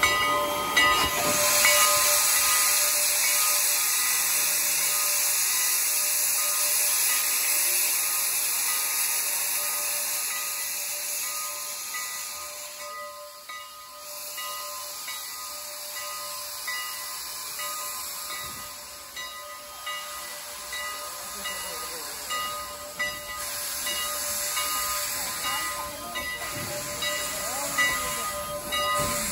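Steam locomotive No. 89, a 2-6-0, hissing loudly as it blows steam from its open cylinder cocks while starting away. The hiss fades about halfway through, and the coaches roll past on the rails.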